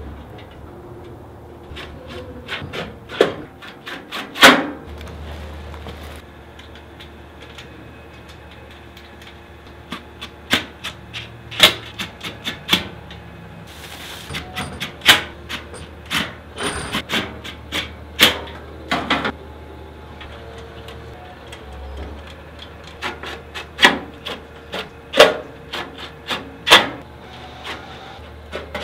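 Irregular knocks and clatter of the Ciays propane fire pit table's metal legs and panels being handled and set in place, with a short rustle of packaging about 14 seconds in.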